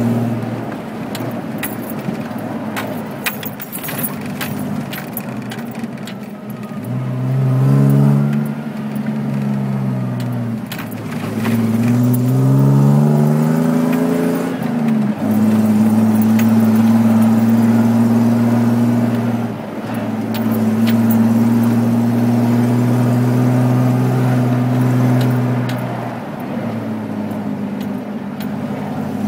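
Off-road vehicle's engine heard from inside the cab while driving fast over desert sand. The revs climb and drop twice in the middle, then hold steady and high before easing near the end, with light rattling and clicking from the cab throughout.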